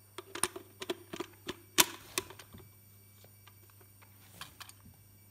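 A run of sharp clicks and light metal-and-plastic clatter as a Vega-12B lens is fitted to a Kiev 6C camera's bayonet mount, the loudest click about two seconds in. A few fainter clicks follow near the end.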